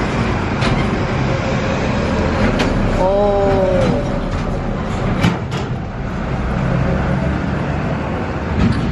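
Steady road traffic noise, with a brief pitched sound rising and falling about three seconds in.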